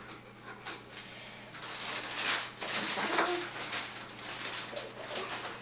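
Fabric and wrapping rustling as a fleece hoodie is shaken out and held up, in irregular swells loudest around the middle.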